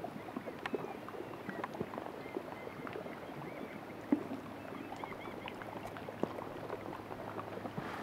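Irregular small clicks, ticks and pops from the brash ice around a gliding kayak, one sharper pop about four seconds in: the crackle of melting glacial ice releasing trapped air, along with the hull nudging small ice. A faint steady low hum underlies it.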